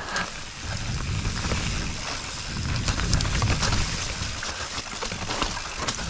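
Mountain bike riding down a wet, muddy dirt trail: tyres on mud and loose ground, with the bike rattling and clicking over bumps above a steady low rumble.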